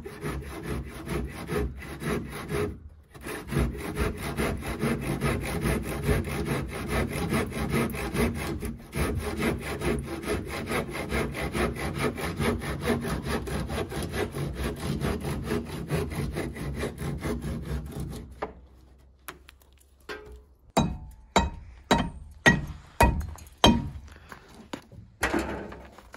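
A saw cutting through the wooden boards of a gate in quick, even strokes, stopping briefly twice. The sawing ends well before the close, and a run of about eight sharp knocks follows, with one more just before the end.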